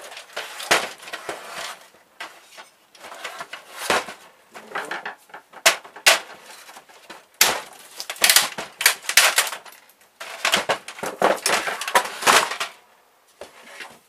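Plastic housing and parts of a Brother laser printer being pulled, pried and shifted about on a wooden bench during a teardown: a busy, irregular run of clicks, knocks and rattles, dying down near the end.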